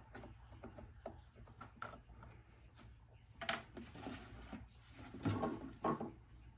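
Scattered clicks and knocks of hands handling the chainsaw and a bar-oil bottle while the bar-oil reservoir is filled and capped, with louder knocks about three and a half seconds in and again between five and six seconds in.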